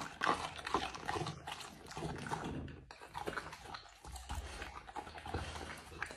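A Rottweiler eating raw meat off a plate, chewing and licking wetly with irregular clicking.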